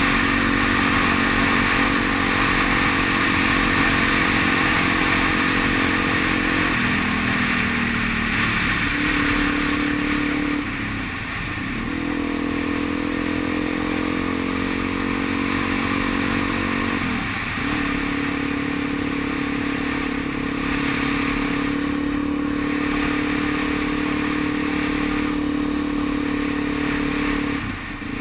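Motorcycle engine running under way, heard from the rider's seat over a steady rush of wind. About seven seconds in the engine note slides down as the bike slows, then breaks off briefly three times before holding steady at a lower pitch.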